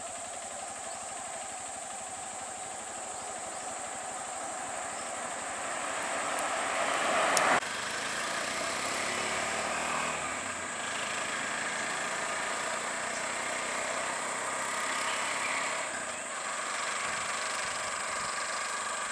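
Motor vehicle engines running on a road. An engine idles and grows louder until the sound cuts off abruptly about seven and a half seconds in. After that, the engines of a three-wheeled auto-rickshaw and a car are heard as they move along the road.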